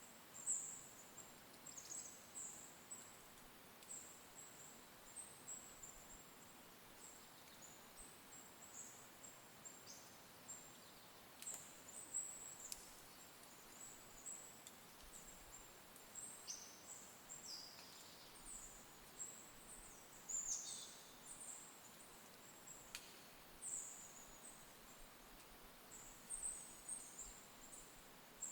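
Faint, very high-pitched chirps and short downward-sliding calls of small forest songbirds, coming irregularly about every second over a soft steady hiss.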